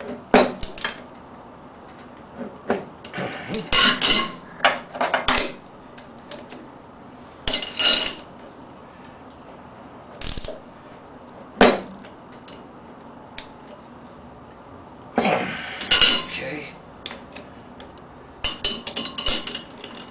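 Steel open-end wrench clinking and clanking against the nuts and threaded steel rods as nuts are tightened on the alternator hub. The clinks come irregularly, singly and in short clusters, some ringing briefly.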